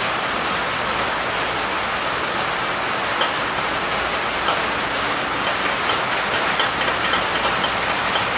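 Steady heavy rain falling on the shop roof. From about three seconds in, light metallic clicks as a VW 1915 engine's crankshaft and connecting rods are turned by hand in the open case half.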